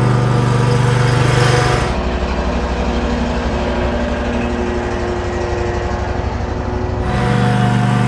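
Ventrac SSV sidewalk machine's engine running steadily under light load as it drives with the drop spreader. Its note drops lower and duller about two seconds in and returns to a higher hum near the end.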